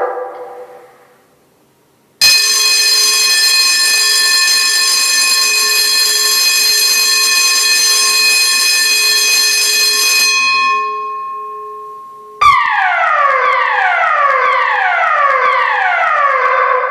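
Building fire alarm sounders. A loud steady tone sounds for about eight seconds and then fades. After a short gap, a falling tone repeats about once a second, the pattern of the German DIN 33404-3 evacuation signal, calling for the building to be cleared.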